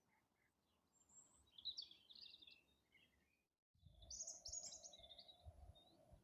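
Wild songbirds singing in spring: a burst of high chirping song, a moment of dead silence, then another, louder burst. After the silence a low steady hum and soft low thumps sit under the song.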